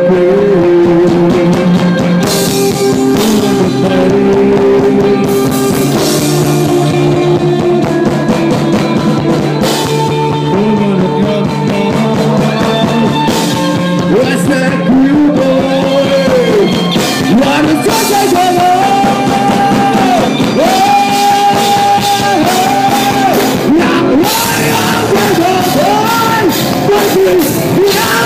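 Live metal band playing loud distorted electric guitar, bass and drums, joined by a vocalist singing into a microphone partway through.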